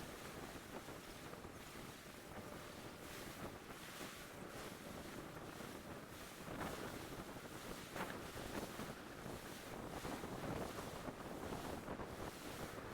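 Faint, steady wind on the microphone over water lapping, an even rushing noise that swells and eases a little.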